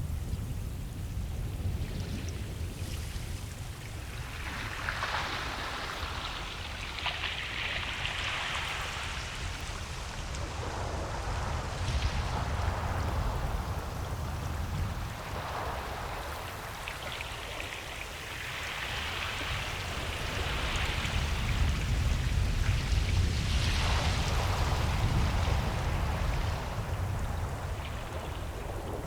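Ocean waves washing onto a beach: a steady low rumble of surf under a hiss of foam that swells and fades four or five times.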